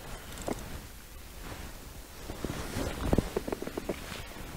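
Wind rumbling on an outdoor microphone, with a short run of handling clicks and knocks about three seconds in.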